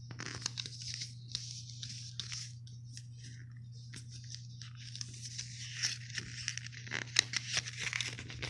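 Paper and thin cardboard being handled: a card packet rustling, sliding and crinkling under the fingers in many short crackles that grow busier in the second half. A steady low electrical hum runs underneath.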